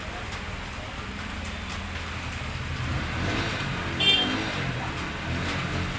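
Road traffic rumbling, with a vehicle engine growing louder from about halfway through. A short high chirp comes about four seconds in.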